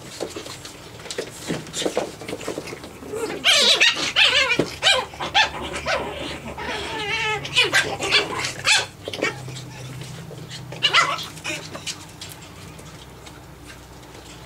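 Japanese Chin puppies yipping and barking as they play. The yips come in a busy run from about three and a half seconds in to about nine seconds, with one more burst around eleven seconds.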